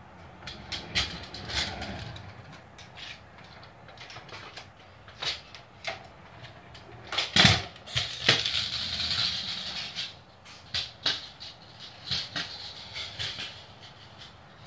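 Kick scooter clattering on a concrete floor during trick attempts: scattered knocks and clicks, the loudest a pair of hard hits about seven and a half and eight seconds in, followed by about two seconds of rolling and scraping noise.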